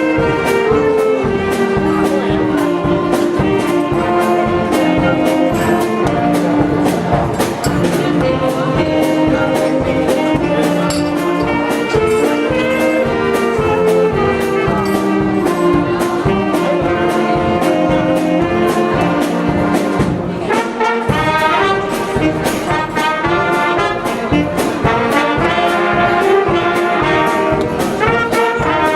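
Live band music: brass with trumpets and trombones playing an up-tempo tune over a steady drum beat.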